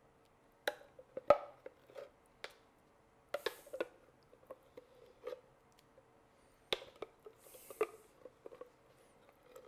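A spatula scraping and knocking inside a blender jar as thick nacho sauce is worked out and dropped onto a casserole. It comes as irregular light knocks and scrapes, with a couple of brief swishes.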